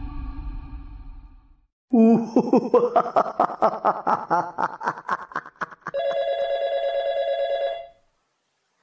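Title music fades out. Then comes about four seconds of a loud, fast-pulsing sound effect, and about two seconds of a steady electronic telephone ringing tone that stops abruptly.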